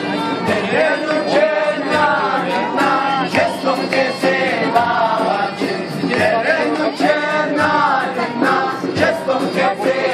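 Several young men singing a Black Sea folk song together, accompanied by a bowed Black Sea kemençe and strummed acoustic guitars, with a steady beat of sharp strokes under the voices.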